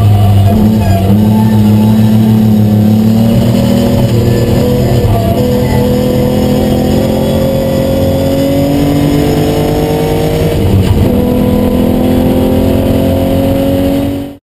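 Austin-Healey 3000's straight-six engine heard from inside the cabin under load on track, its pitch climbing slowly, dipping briefly about eleven seconds in, then climbing again. The sound cuts off shortly before the end.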